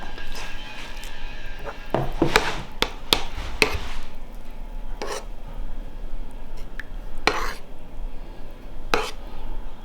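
Irregular clatter of kitchen work: sharp knocks and clinks at uneven intervals, with a faint steady tone that stops about two seconds in.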